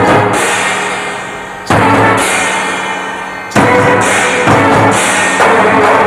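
Instrumental break in a Bollywood film song: three heavy accented hits on drums and cymbals, about two seconds apart, each left to ring and fade, before the band plays on again near the end.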